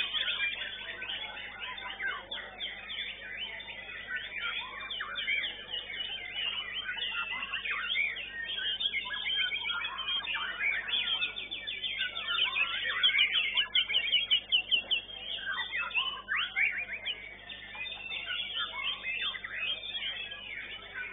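White-rumped shama (murai batu) singing a varied song of quick whistles and chirps, including a fast run of repeated notes about twelve to fourteen seconds in. A steady low electrical hum runs underneath.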